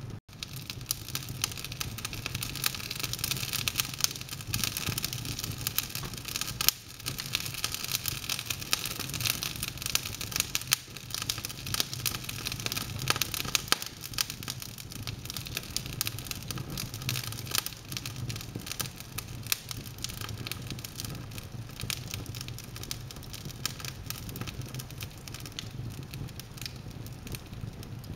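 Wood logs burning in an open fireplace, crackling continuously with frequent sharper pops, over a low steady hum.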